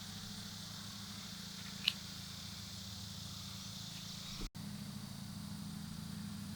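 Summer field ambience: a steady insect buzz over a low steady hum, with a short high chirp about two seconds in. The sound drops out for an instant a little past halfway.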